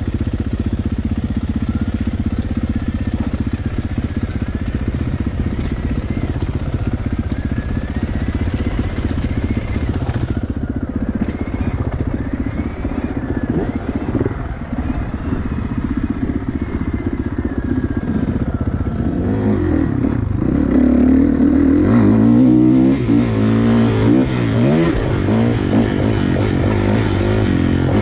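2016 Kawasaki KX450F four-stroke single-cylinder dirt-bike engine running under way on a dirt trail, its pitch rising and falling with the throttle. In the last third it grows louder and revs up and down more.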